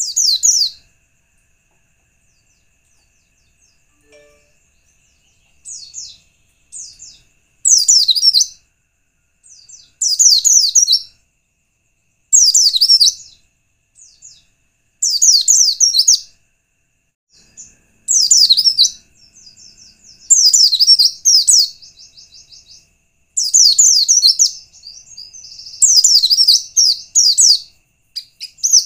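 A pleci (white-eye) singing short, rapid, high warbling phrases about a second long, repeated every two to three seconds. A faint steady high tone runs beneath the song.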